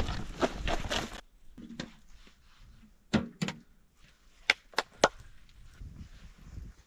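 Firewood being chopped: two sharp wooden strikes about a third of a second apart, then three more about a second later. Before them, a loud crunching noise stops abruptly about a second in.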